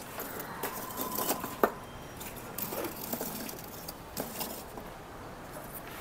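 Lumps of charcoal clinking and scraping as they are shifted by hand in a sheet-metal barbecue box, a few light knocks scattered through, the sharpest about a second and a half in.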